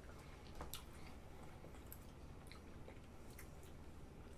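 Quiet eating of ice cream: faint, scattered small clicks of metal spoons against glass dessert cups, with soft chewing and mouth sounds, over a near-silent room.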